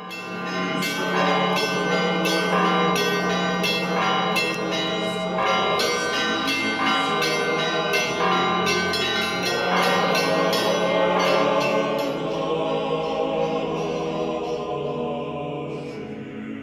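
Church bells ringing in a rapid, irregular peal over a steady low hum. The strikes stop about twelve seconds in and the ringing dies away.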